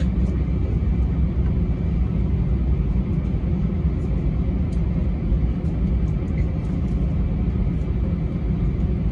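Cabin noise of a jet airliner taxiing: a steady low rumble from the engines and rolling gear, with a faint high whine held on one pitch.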